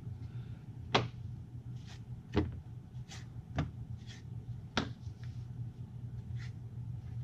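Thick cardboard board-game track tiles being set down and tapped onto a table: four sharp taps about a second apart, with fainter handling sounds between.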